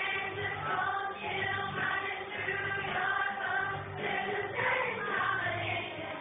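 Children's choir singing a hymn-like song together, accompanied by an organ holding low sustained notes underneath.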